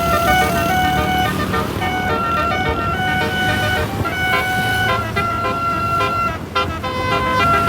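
Basuri musical bus horn playing a tune: held, pitched notes stepping from one to the next several times a second, with a low rumble underneath and a brief break in the tune about six and a half seconds in.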